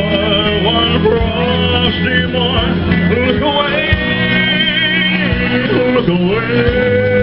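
Amplified music with singing, holding long notes with vibrato over a steady bass.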